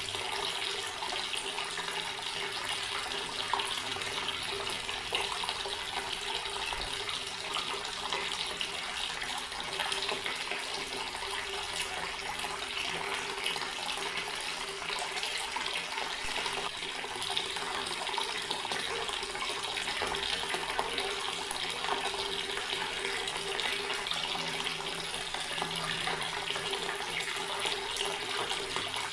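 Outdoor water tap running steadily, an even, unbroken rush of water.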